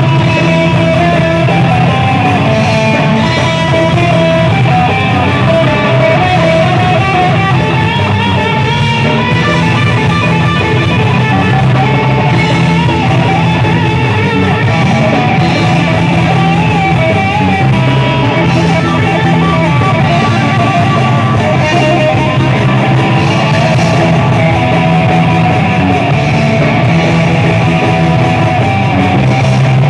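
Thrash metal band playing live and loud: distorted electric guitars over bass and a drum kit, with a lead line that bends and wavers in pitch.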